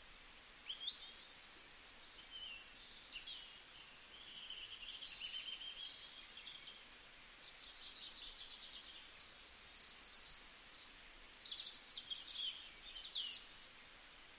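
Several birds chirping and calling over a faint steady hiss. Short sliding chirps and quick trills come in bursts, loudest near the start and again about twelve seconds in.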